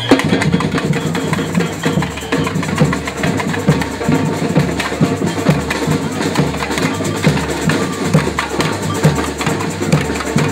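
Street drum band playing a fast, steady rhythm on snare drums and a bass drum, with sharp woodblock-like clicks.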